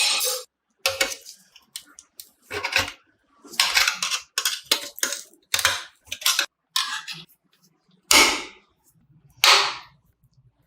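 A quick string of short, sharp metallic knocks and clattering noises from tools and metal parts being worked on, about a dozen in all, with brief silences between them.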